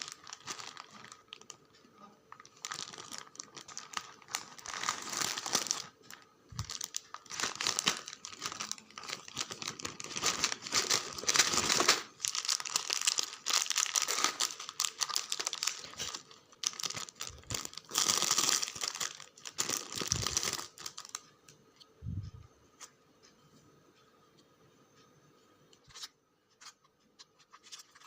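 Packaging crinkling and tearing as a parcel is opened by hand, in dense irregular bursts that die down to a few scattered clicks for the last several seconds.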